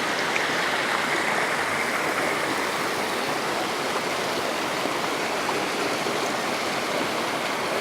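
Rushing water running steadily, an even unbroken rush.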